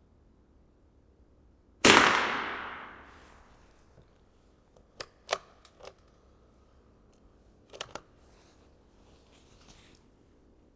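A single .22 LR rifle shot about two seconds in, echoing for nearly a second. A few sharp metallic clicks follow about three seconds later and again near six seconds, as the rifle's action is worked for the next round.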